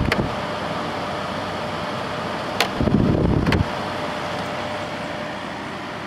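Quasar Cool Look 6000 BTU window air conditioner running on cool with its compressor on, a steady hum with a faint steady tone; it runs smoothly, a sign the unit works. A click sounds at the start, and a brief low rumble with a click at each end comes about two and a half seconds in.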